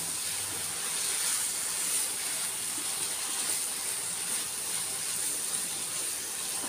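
Prawn fry with onion and capsicum sizzling with a steady hiss in a non-stick kadai while a spatula stirs it, the masala cooking down and thickening.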